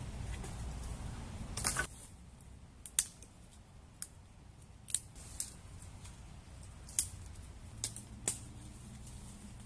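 Small dry twigs snapped by hand, about seven sharp cracks spaced roughly a second apart, after a brief rustle of brush near the start.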